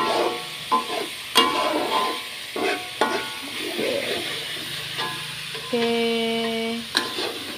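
Metal spatula stirring chili sambal in a wok, knocking and scraping against the pan every second or so with a brief metallic ring, over the steady sizzle of the sambal frying in oil.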